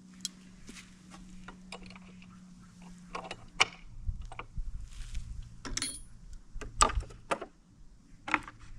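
Scattered metallic clicks and clinks of a short wrench working 14 mm bolts and lock nuts while a winch fairlead is bolted on. The loudest knock comes about seven seconds in, and a faint low hum runs under the first half.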